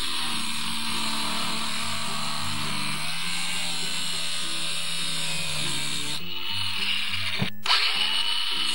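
Angle grinder with an abrasive cut-off disc grinding through a steel threaded rod welded to a steel bracket, a steady hiss of grinding. The cutting lets up briefly about six seconds in, and after a sharp click a second later it starts again on the second rod.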